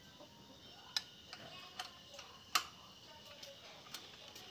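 Hex key working a bolt on a motorcycle's exhaust mount, making faint, irregular metal clicks and ticks as the key is turned and reseated. Four sharper clicks stand out, the loudest about two and a half seconds in.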